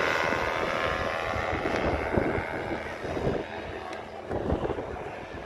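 Paramotor engine and propeller running steadily, with wind buffeting the microphone; the engine tone fades after about two seconds, leaving mostly gusting wind noise.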